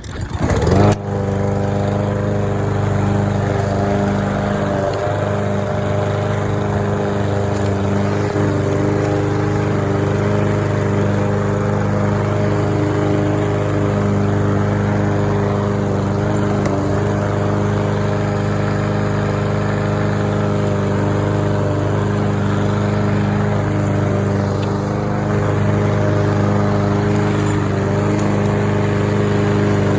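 Craftsman M320 lawn mower's 163 cc engine starting up about a second in, then running steadily at mowing speed.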